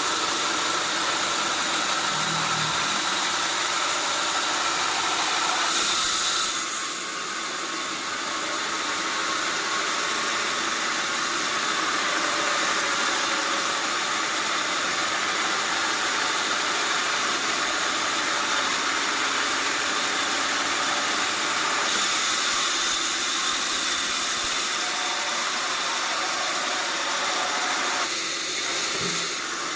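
Sawmill machinery running steadily: a continuous hissing mechanical noise with a faint engine-like hum. Its tone shifts abruptly a few times.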